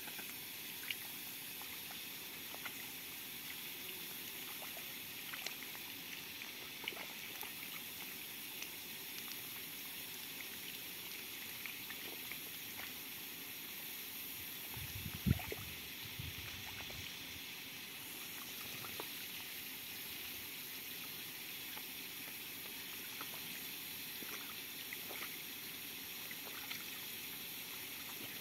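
Muscovy duck bathing in a shallow puddle: small splashes and drips of water, scattered through, with one low thump about halfway through.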